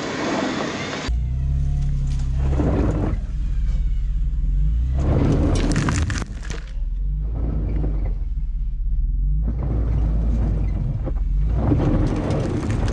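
Vehicle engine labouring under load with a steady low drone, and several bursts of crunching and grinding as spinning tyres dig into loose dirt and fling rocks, while a stuck vehicle is driven out of soft ground.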